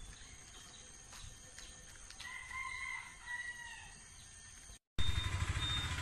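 A rooster crowing once, about two seconds in, over faint outdoor background noise. Just before five seconds the sound cuts out briefly and gives way to a louder, steady rumbling noise.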